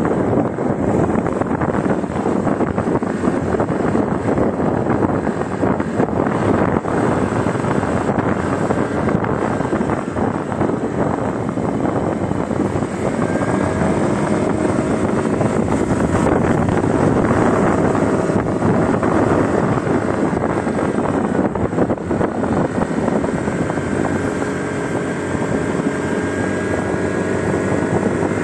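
Wind rushing over the microphone of a moving motorcycle, with the bike's engine running underneath; from about halfway through, a steady engine hum comes through more clearly.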